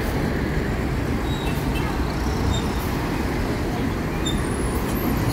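City bus engine running in street traffic: a steady, mostly low sound with no sharp events.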